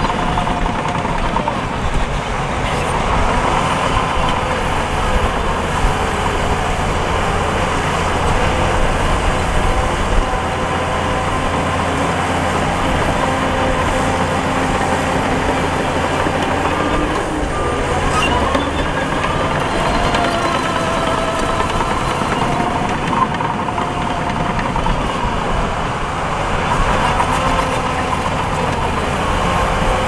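Heavy diesel engines of earthmoving machinery, dump trucks and a bulldozer, running steadily under load, with a few faint wavering whining tones over the engine noise.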